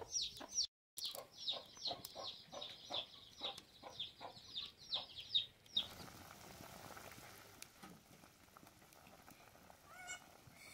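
A metal spoon scraping round a metal karahi as thick curry masala is stirred: a regular squeaky scrape about three times a second. It stops about six seconds in, giving way to the steady bubbling of the masala gravy boiling hard in the pan.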